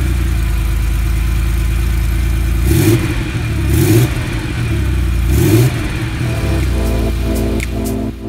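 Porsche 964 Turbo 3.3's air-cooled turbocharged flat-six idling, heard close to the tailpipe, with three short throttle blips about three, four and five and a half seconds in, each rising and falling back to idle.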